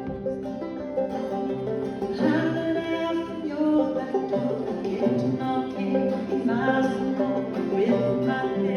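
Old-time string band playing an instrumental passage, with a banjo picking a driving rhythm and a fiddle carrying the melody in long notes.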